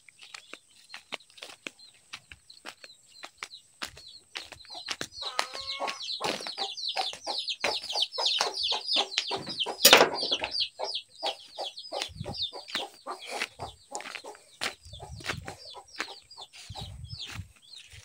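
Chickens calling in a rapid string of short, high calls, each falling in pitch, busiest in the middle. A sharp knock about ten seconds in is the loudest single sound.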